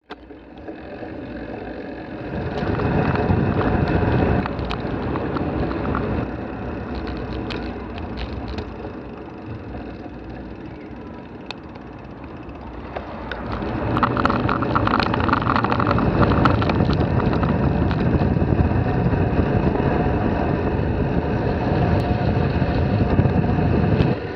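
Wind rushing over the microphone and rumbling road noise from a ride. It grows louder a couple of seconds in and again about halfway, with scattered small knocks and clicks.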